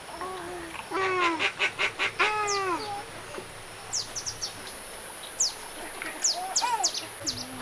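Domestic poultry calling: a quick run of pitched honking calls about a second in, another call soon after, and more near the end, with short high chirps between them.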